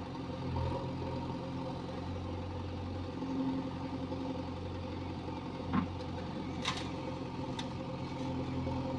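Diesel engine of a JCB 3DX backhoe loader running steadily, with a few short sharp knocks in the second half.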